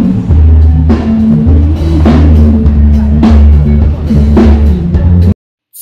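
Loud music with a drum-kit beat and heavy bass, cutting off suddenly near the end.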